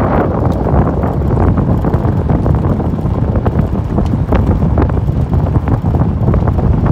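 Wind buffeting the microphone over the steady rumble of a vehicle driving along a road, with many short sharp pops and crackles running through it.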